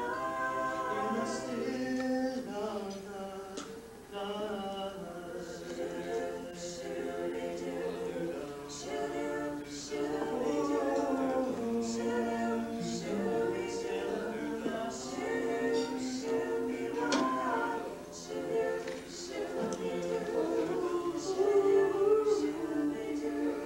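A small mixed group of men and women singing a cappella in harmony, with no instruments, sustaining long notes.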